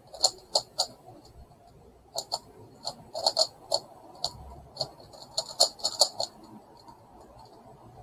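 Megaminx puzzle being turned fast: quick runs of sharp plastic clicks and clacks as its faces snap round, with short pauses between the runs and a quieter stretch near the end.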